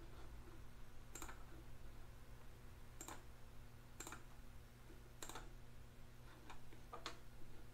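Computer mouse clicking about six times at uneven intervals while a CAD model is navigated, over a steady low hum.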